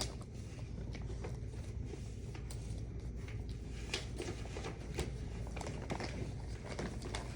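Faint rustling and scattered light clicks of packaging being handled and opened by hand.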